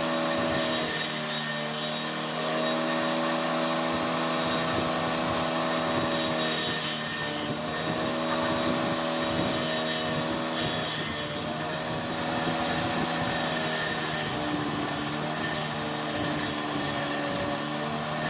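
Power drill driving a saw blade in a homemade table-saw rig, cutting wood: a steady motor whine with the rasp of the blade, its pitch sagging briefly several times as the cut loads it.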